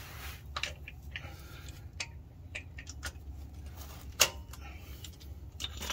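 Scattered light metallic clicks and clinks of sockets and hand tools being handled, with one sharper click about four seconds in.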